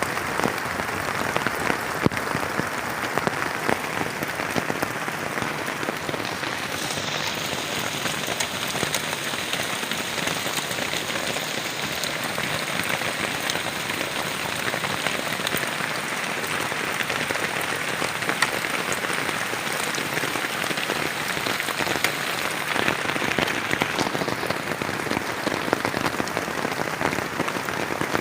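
Heavy rain falling steadily on a plastic tarp shelter, with many separate drop hits heard through the hiss.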